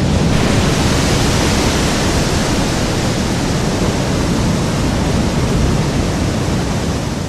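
Designed tsunami sound effect at the wave's breaking point: processed ocean-wave recordings layered with massive water splashes and an explosion impact. They merge into a loud, dense, steady wall of crashing, rushing water with heavy low rumble.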